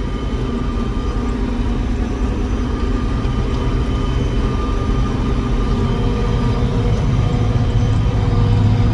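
Self-propelled forage harvester chopping corn for silage with a 10-row head, heard from inside the cab. Its engine and cutting gear make a steady heavy drone with several held whining tones, growing slightly louder toward the end.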